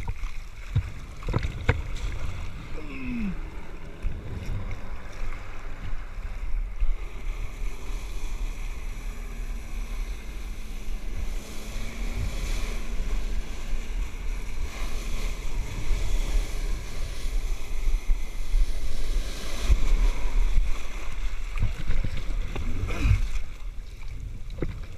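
Flyboard water jets rushing and churning the sea into spray, with heavy wind rumble on the microphone; loudest about three-quarters of the way through.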